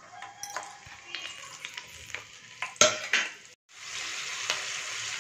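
Garlic cloves frying in hot oil in a steel kadai: light crackles at first, a sharp knock about three seconds in, then after a brief silence a steady sizzle of the oil bubbling around the cloves.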